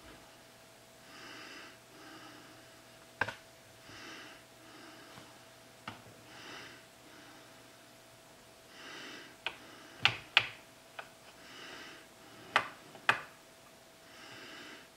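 Slow breathing close to the microphone, one soft breath about every two and a half seconds. Between them come several sharp clicks and taps, loudest and closest together about ten to thirteen seconds in. A faint steady hum runs underneath.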